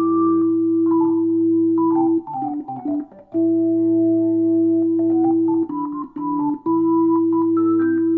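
1976 WLM Trip organ, a Finnish Hammond clone, played through an Allsound Leslie speaker. It holds sustained chords in the bass and middle register while a melody line moves above, and the chords break off briefly twice.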